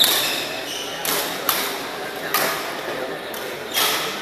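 Badminton doubles rally: several sharp racket hits on the shuttlecock about a second apart, with brief squeaks of shoes on the court floor.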